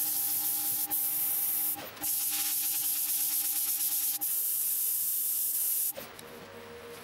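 Power sanding pad pressed against the face of a wooden disc spinning on a lathe: a loud steady hiss over a steady motor whine, with brief breaks as the pad is lifted. It stops about six seconds in, leaving a quieter steady hum.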